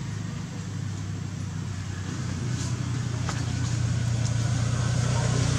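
A motor vehicle's engine running nearby, a steady low hum that grows louder.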